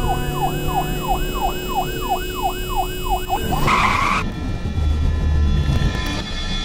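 An emergency siren in a fast yelp, its pitch rising and falling about three times a second, cuts off a little over three seconds in and gives way to a short, loud screech, followed by a low rumble.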